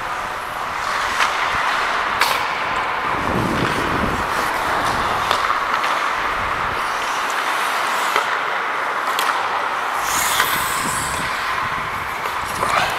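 Ice hockey skates scraping and gliding on the rink ice, with the sharp clack of sticks and puck now and then and a brief low rumble about three to four seconds in.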